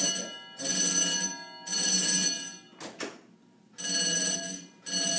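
Hotel fire alarm ringing in bursts about a second long with short breaks between them. A longer pause comes about three seconds in, marked by a sharp click, before the ringing starts again.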